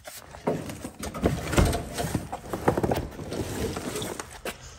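Irregular footsteps and scuffs on a concrete floor, with rustling handling noise.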